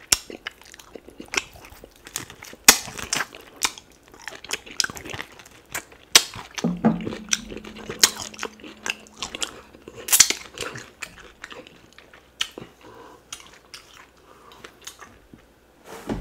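A person biting, tearing and chewing cooked duck meat off the bone, close to the microphone: an irregular run of sharp crackles, crunches and mouth smacks. A steady low hum sounds for a couple of seconds midway.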